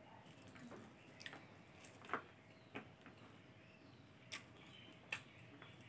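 Quiet eating by hand: a handful of faint, sharp clicks and small wet sounds from chewing and fingers working rice on a plate. The loudest click comes about two seconds in.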